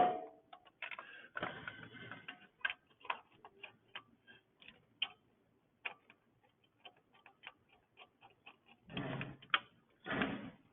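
A sharp metallic clank with a short ring, then light, irregular clicks and ticks of small metal engine parts and hand tools being handled, with two brief bursts of rustling and handling near the end.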